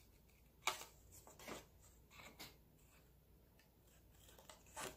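Scissors snipping through scrapbook paper: a few separate short snips, irregularly spaced, the first the loudest.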